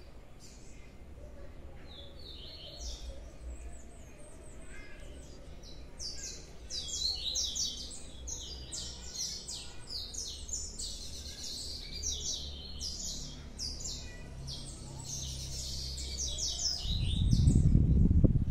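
Small songbird singing a fast, twittering run of high chirps and trills, starting about six seconds in after a few weaker chirps. Near the end a loud low rumbling noise rises over it.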